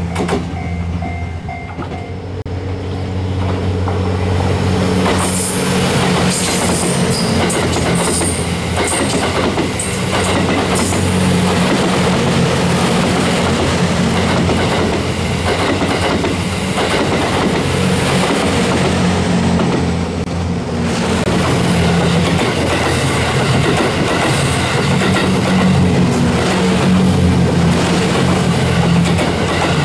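Series 87 diesel railcar train (Twilight Express Mizukaze) passing close by, with a steady low engine drone and its wheels clacking over the rail joints in clusters as the cars go by.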